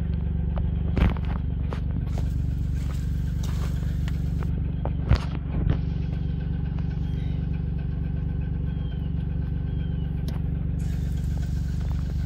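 An engine idling steadily, with a few sharp knocks or clicks about a second in and again around five seconds in.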